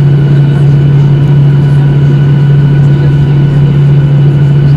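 Steady, loud cabin drone of a Boeing 737-800's CFM56-7B engines: a strong low hum with fainter steady high whines above it, unchanging throughout.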